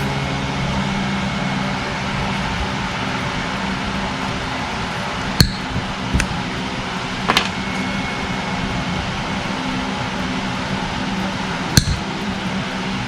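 Wire cutters snapping through the burned 10-gauge copper wires of a 30 amp RV power inlet: three sharp snips a second or more apart, with a lighter click between the first two, over a steady low hum.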